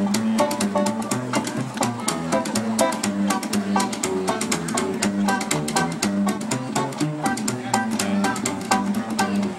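Acoustic band playing an instrumental passage: an upright bass plucked in a steady beat under a strummed acoustic guitar, with quick stepping melody notes on top.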